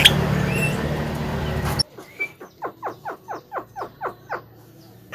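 Steady background hum and noise that cuts off abruptly; then a Javan myna gives a rapid series of about ten short downward-sliding notes, about five a second.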